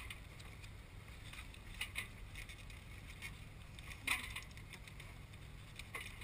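Light metallic clinks and rattles from hands working a sailboat halyard and its shackles, a few scattered clinks with the loudest about four seconds in, over a steady low rumble.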